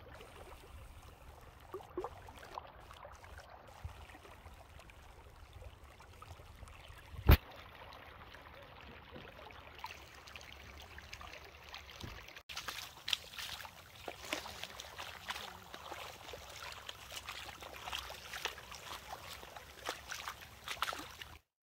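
Muddy flash-flood water running shallow over sand in a desert wadi after rain: a steady rush and trickle. A single sharp click comes about seven seconds in. From about halfway the water sounds louder and more splashy, and it cuts off suddenly near the end.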